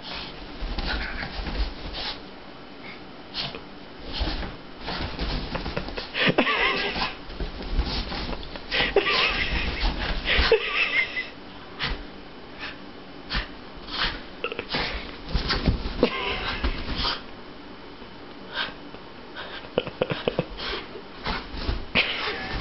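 Boston terrier and cat play-wrestling on bedding: irregular scuffling, rustling and soft knocks, with a few wavering animal vocal noises around a third of the way and halfway in.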